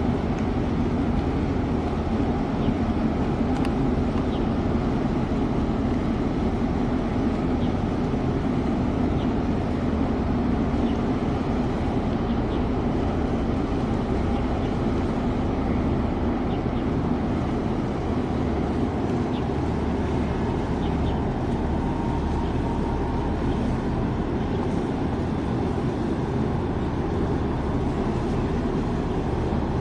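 Steady low engine rumble of a ship under way, with a deeper hum that eases about two-thirds of the way through.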